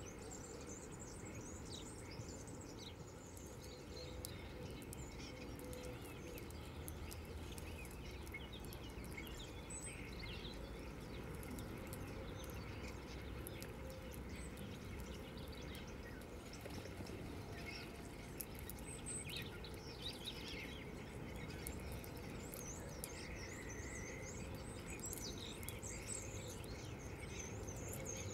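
Small songbirds chirping and twittering: many short high calls scattered throughout, with a longer twittering run towards the end, over a steady low background noise.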